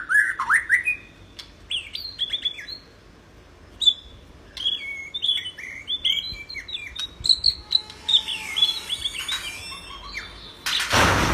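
White-rumped shama singing a rich, varied song of short whistled phrases that sweep up and down, with a brief pause partway through. A loud rushing noise cuts in near the end.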